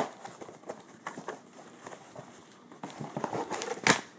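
Packaging being handled: scattered taps, knocks and rustles as the hookah home's pieces are unpacked from their styrofoam wrapping. A sharp knock comes at the start and a louder scrape near the end.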